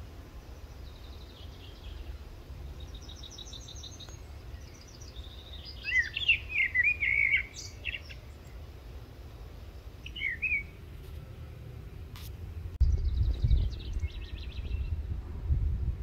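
Songbirds singing in short trilled and warbling phrases, several in a row, the loudest a quick warbled phrase about six seconds in and another trill near the end. A low rumble runs underneath and grows stronger in the last few seconds.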